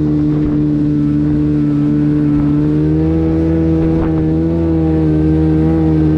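Kawasaki 750 two-stroke jet-ski engine powering a jet jon boat, running steadily at speed; its pitch rises slightly about three seconds in, then eases back.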